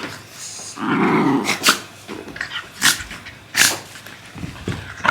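Shiba Inu growling in rough play, one loud rough growl about a second in, with several short sharp scuffling knocks around it.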